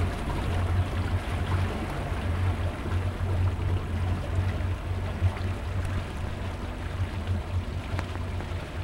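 Motorboat engine running at low speed as the boat pulls away across calm water: a steady low rumble that fades slightly.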